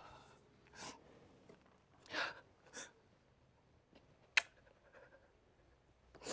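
A woman sobbing in grief: a few short, gasping, breathy sobs. A single sharp click a little past the middle is the loudest sound.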